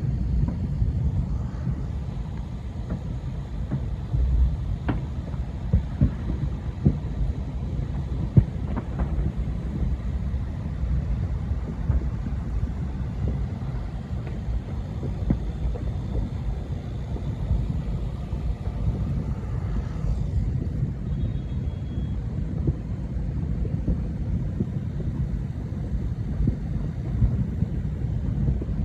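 Countless distant fireworks merging into a continuous low rumble like rolling thunder, with scattered sharper pops and bangs standing out every second or two.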